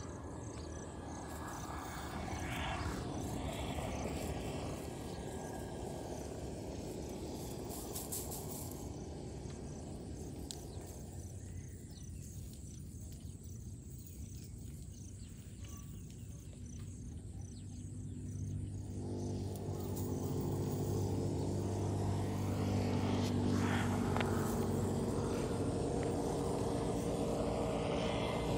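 Outdoor ambience with insects chirping in a regular pattern. About two-thirds of the way through, a motor vehicle's engine drone comes in and grows louder.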